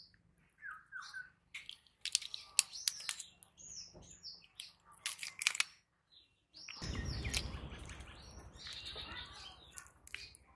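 Birds chirping, with sharp scratchy clicks as a fish is scraped against the upright blade of a boti to scale it. About seven seconds in comes a louder rushing noise lasting around three seconds.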